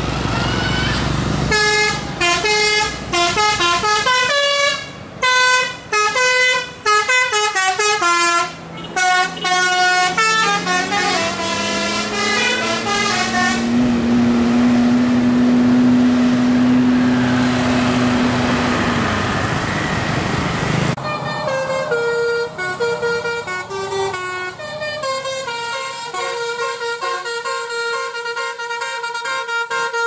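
Tour buses' telolet musical air horns playing quick multi-note melodies. Midway the horn gives way to a bus engine revving higher and holding, the loudest stretch. From about two-thirds in, a second horn tune with a different tone starts.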